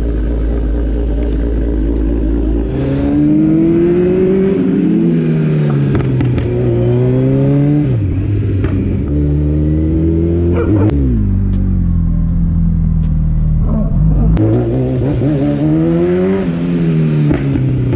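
Kawasaki Z900 inline-four motorcycle engine running low for about three seconds, then pulling away and revving up through the gears, its pitch climbing and dropping sharply at each shift several times over. It holds steadier for a few seconds, then revs up and eases off again near the end.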